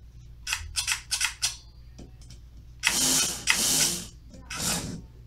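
HO-scale slot car's small electric motor whirring in short bursts as power is fed to the newly wired lane, a sign that the lane is getting power; a few brief bursts, then two longer ones and a last short one. A low steady transformer hum runs underneath.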